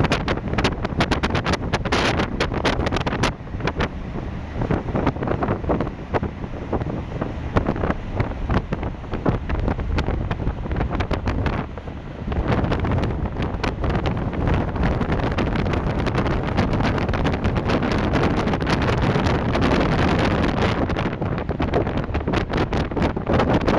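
Wind buffeting the microphone in gusts on the deck of a small car ferry under way, over the ferry's low, steady engine rumble.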